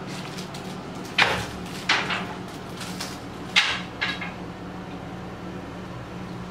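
Three short, sharp scraping clatters of objects being handled on a desk, about a second in, near two seconds and past three and a half seconds, over a steady low hum.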